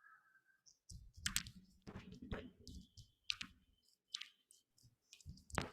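Irregular clicks and taps of a computer keyboard and mouse in use, some with a low thud. A steady tone dies away in the first second.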